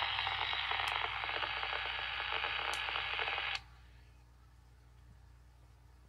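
Radio static hissing loudly from a two-way radio's Bluetooth speaker-microphone, with a couple of sharp clicks. It cuts off suddenly about three and a half seconds in, leaving only a faint hum.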